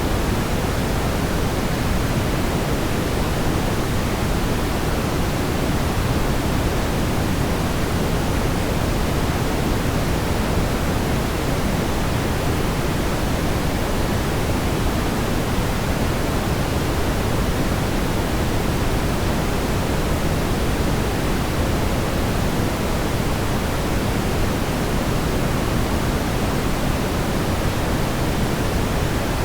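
Steady synthetic brown noise: an even, smoothed rushing hiss weighted toward the low end, unchanging throughout.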